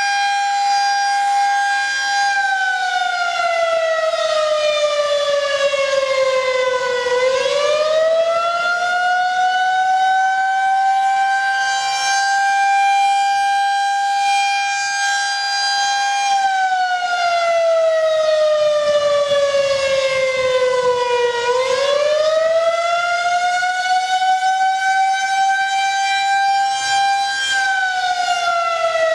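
Federal Signal 2001-SRN rotating siren sounding the attack signal, a high-pitched wail. Its tone holds, slides down over about five seconds, sweeps quickly back up and holds again; this happens twice, and a third fall begins near the end.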